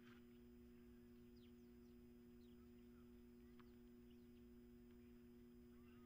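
Near silence: a faint steady hum, with a few faint, very short bird chirps scattered through.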